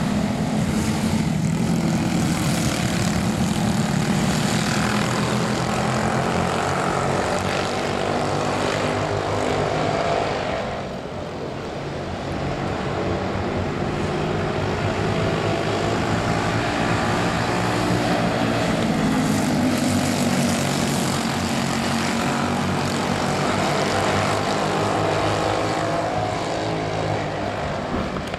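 Engines of a small pack of mini modified-style race cars running together on an oval track, a buzzing mix of engine notes that rises and falls in pitch as the cars circle. The sound drops off briefly about eleven seconds in, then swells again.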